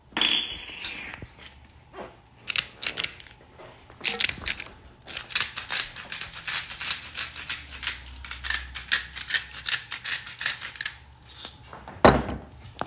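Salt and pepper shakers being shaken: a run of quick rattling clicks, several a second, with a single loud knock near the end.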